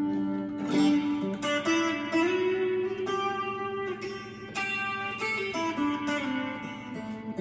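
Strat-copy electric guitar played through its bridge pickup: a run of picked notes and chords ringing out.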